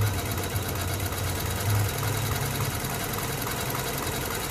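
2006 Lexus ES 330's V6 engine idling steadily, with headlights, stereo and air conditioning switched on, and a faint light ticking over its low hum.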